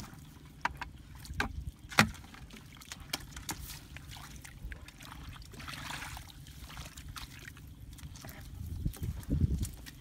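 Shallow muddy water sloshing and trickling as someone wades and feels for fish by hand, with a scatter of sharp splashy clicks, the loudest about two seconds in, over a steady low rumble.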